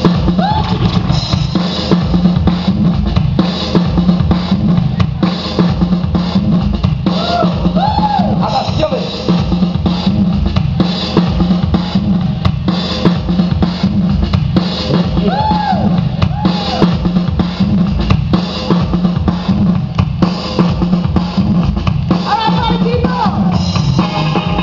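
Loud music with a heavy drum-kit beat and a strong, steady bass, with short rising-and-falling pitched sounds laid over it every few seconds.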